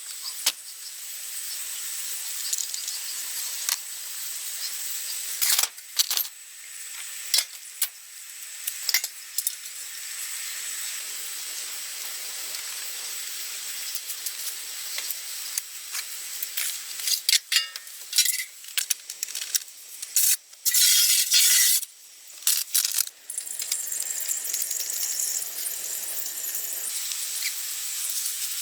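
Steady high hiss broken by many sharp clicks, taps and clinks of hand tools, with a busier run of them a little past the middle.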